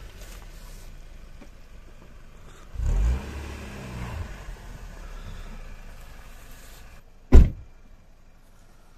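Car engine running low as the car rolls up, briefly revving with a louder surge about three seconds in. Near the end a car door slams shut with one sharp, loud bang.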